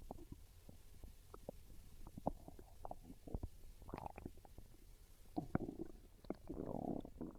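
Hungry human stomach growling and gurgling: a string of short pops and squelches, then two longer gurgles in the second half, the longest one near the end.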